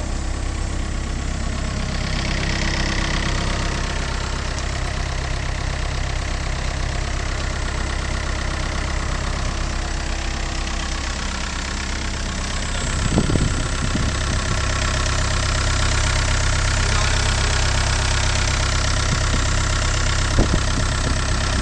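Ditch Witch MX502 mini excavator's diesel engine idling steadily. A few knocks come about halfway through, after which the engine sounds slightly louder, and there are a couple of sharp clicks near the end.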